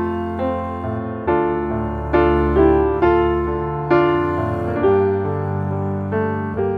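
Background piano music, with a new chord struck about once a second that fades before the next.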